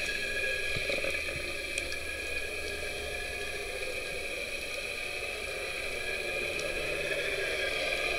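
Steady underwater noise recorded by a camera in its housing: a low hum with several steady tones above it and a few faint clicks.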